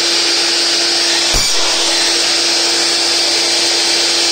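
Makita LH1201FL table/mitre saw running steadily at speed, a loud even whine and hiss, with one short knock about a second and a half in.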